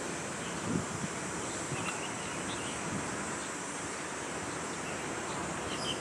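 Steady outdoor background noise at a football pitch, with a few faint, short distant calls and a soft knock just under a second in.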